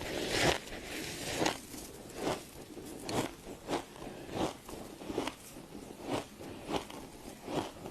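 Freezer frost being bitten and chewed, in a series of short, sharp crunches a little more than one a second.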